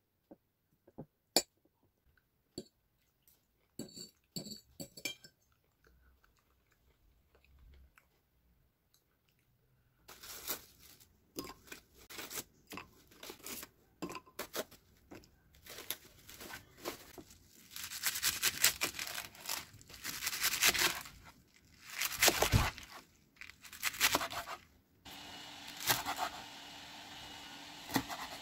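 A metal fork makes a few light clicks against a ceramic bowl. Then, louder, comes the irregular crunching and tearing of raw shrimp being handled and cleaned in a bowl of water. A steady hum comes in near the end.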